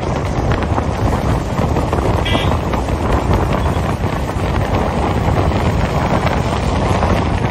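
Wind buffeting the microphone over the rumble of a car travelling at speed on the road. A short high beep sounds about two seconds in.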